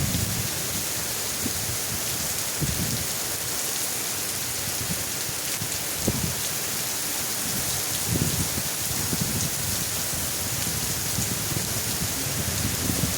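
Heavy rain falling in a steady, dense hiss, with short low rumbles coming and going underneath.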